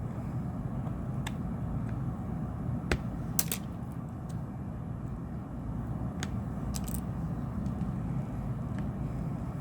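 A handful of sharp, scattered clicks of plastic pry tools working against a phone's clipped plastic back cover, over a steady low background rumble.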